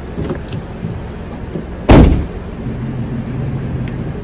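A car engine idling with a steady low hum, and one loud car door slam about two seconds in.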